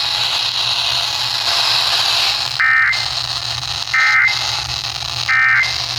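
Three short bursts of SAME digital data tones from NOAA Weather Radio, a little over a second apart, over steady radio hiss: the end-of-message code that closes a severe thunderstorm warning broadcast.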